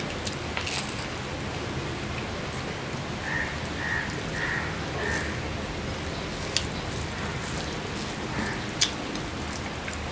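Close-up eating sounds: chewing and sharp wet mouth clicks from eating rice pulao by hand, the loudest click near the end. Under them is a steady hiss of rain.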